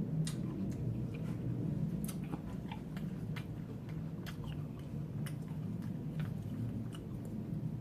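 Close-miked chewing and biting of sushi rolls: scattered small crunches and mouth clicks over a low, steady hum.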